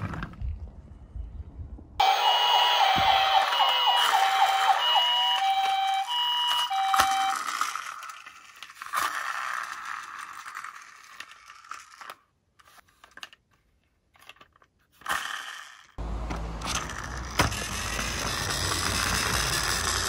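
A toy emergency car's electronic siren plays a stepped, beeping siren tune for about five seconds, then trails off. Near the end, a toy car's wheels set up a rolling rumble.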